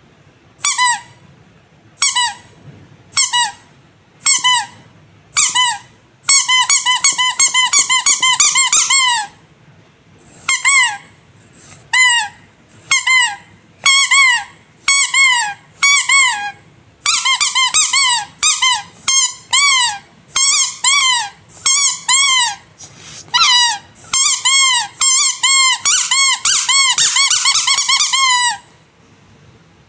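Rubber squeaky animal toy squeezed over and over, each squeeze giving a short high squeak that bends up and down in pitch. At first the squeaks come singly about a second apart, then in quick runs of rapid squeezes, and they stop about a second before the end.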